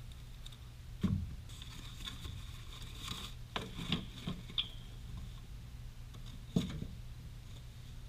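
Brake pads being unpacked from a cardboard box by hand: rustling and scraping of the packaging with scattered clicks, and sharp knocks about a second in and again near the end as the parts are handled.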